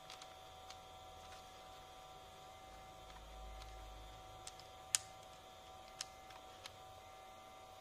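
Sparse, sharp clicks and taps of hard plastic as the Kamen Rider Saber DX Dragonic Booster toy is handled, the sharpest about five seconds in, over a steady faint electrical hum.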